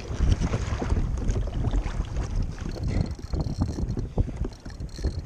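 Wind buffeting the microphone, and sea water slapping and splashing against a fishing kayak's hull in choppy water, with irregular knocks.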